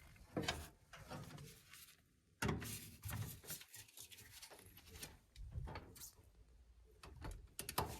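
Hand tools and metal burner parts being handled: a series of irregular knocks and clanks, with a brief dead-silent gap about two seconds in.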